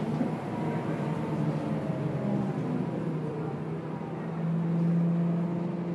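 Scania K230UB bus's diesel engine running under way, heard from inside the passenger cabin: a steady engine hum whose pitch shifts, then settles into a louder, even tone about four seconds in.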